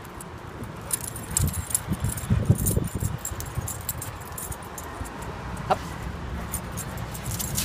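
Light metallic jingling of dog collar tags and leash hardware as puppies walk, with low thumps about one to three seconds in and one short high squeak near the end.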